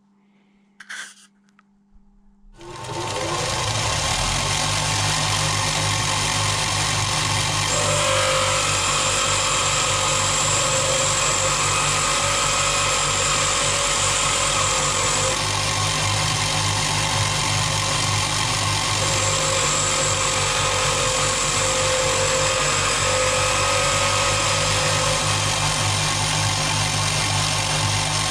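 Bench grinder switched on about two and a half seconds in, spinning up to a steady running hum while a lathe tool bit is ground to angle against the wheel. A higher whine comes in twice, each time for several seconds.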